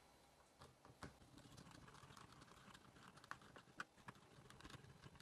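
Faint, irregular small clicks and taps of an RC car's plastic parts and small tools being handled during reassembly.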